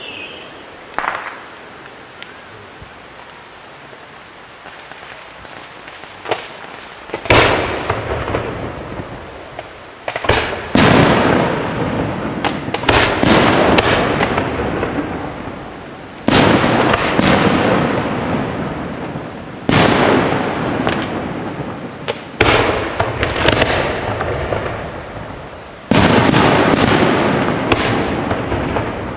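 Aerial fireworks shells bursting: after a quieter start, about a dozen sudden loud bangs, each followed by a long rumbling, crackling tail that fades over a few seconds.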